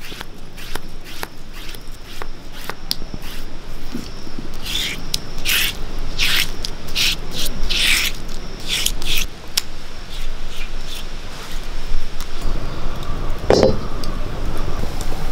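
Stone roller grinding ginger and garlic on a flat stone grinding slab (ammikkallu), making repeated rasping strokes. Near the end a cast-iron kadai is set down on a wood-fired stove with a single clunk, over a low rumble.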